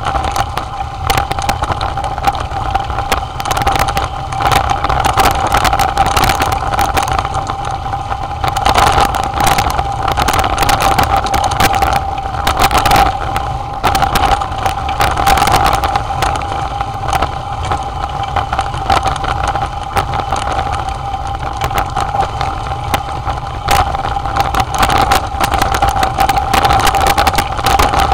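Mountain bike descending a rocky dirt trail: wind rush on the microphone and the bike rattling and knocking over stones and roots, over a steady mid-pitched hum.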